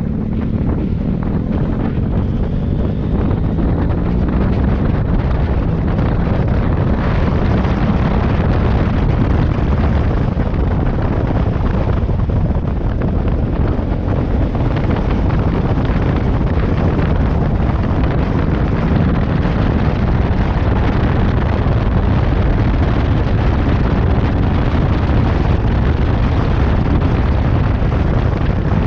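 Heavy wind buffeting the microphone over a motorcycle engine running while riding, the engine rising in pitch briefly in the first few seconds.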